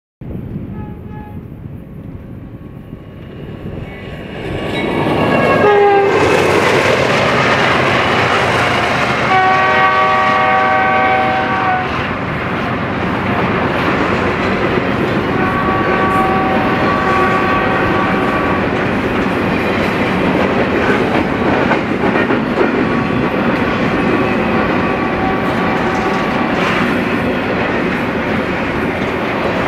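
BNSF double-stack intermodal freight train passing close by: the locomotives' multi-note air horn sounds as they approach, its pitch dropping about six seconds in as the train grows loud, with two more horn blasts around ten and sixteen seconds in. Underneath, the steady rumble and rhythmic wheel clatter of the container well cars rolling past.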